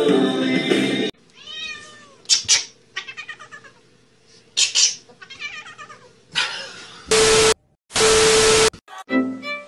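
A domestic cat meowing several times, drawn-out calls that rise and fall in pitch. Near the end come two loud bursts of hiss-like noise, each with a steady beep.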